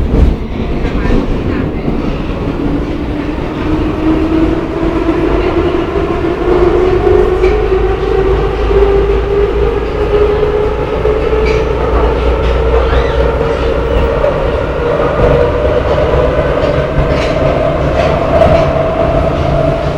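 Budapest Metro line 2 train running between stations, heard from inside the carriage: a steady rumble of wheels on rail with scattered clicks, and a whine that climbs slowly in pitch as the train gathers speed.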